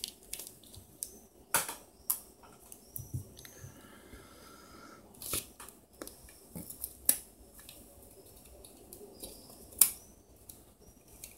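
Scattered sharp plastic clicks and snaps from a mobile phone being taken apart by hand: its plastic frame and circuit board are pried and eased apart, with taps of a small screwdriver. The loudest snap comes near the end.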